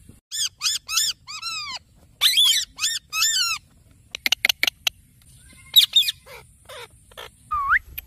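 Indian ringneck parakeets squawking in clusters of short, repeated calls, with a quick run of short sharp notes about halfway through and a rising whistle near the end.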